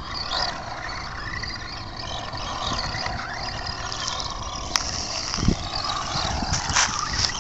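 Radio-controlled rally car running on loose dirt, its small motor whining and rising and falling in pitch as it is throttled around a post. A sharp click comes about five seconds in.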